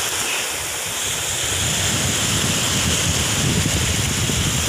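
Small waves washing onto a shallow sandy beach, with wind rumbling on the microphone that grows stronger after about a second and a half.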